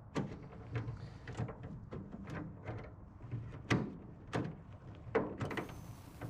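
A VW Crafter rear door's newly fitted lock and latch being worked, giving a run of separate mechanical clicks and clunks, about ten in all, the loudest a little past the middle.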